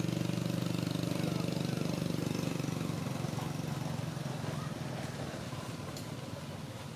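A small engine running with a steady low hum, growing fainter from about halfway through as it moves away.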